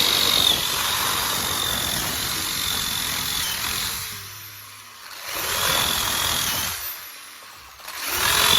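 Power drill boring through a 2-inch channel spacer block at its pilot hole, the motor running with a steady high whine. It runs three times, easing off about four seconds in, starting again about a second later, pausing briefly near seven seconds and starting once more near the end.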